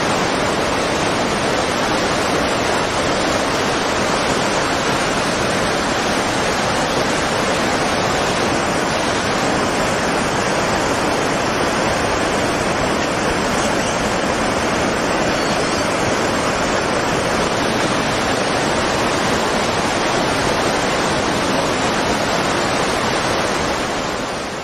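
Floodwater of the 2011 Tōhoku tsunami rushing steadily, thick with wreckage of buildings, with a faint high steady tone in it for a while around the middle. The rush fades out at the very end.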